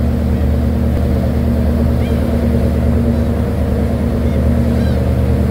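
Ferry engine running steadily with the rush of its churning wake, and a few faint seagull calls over it.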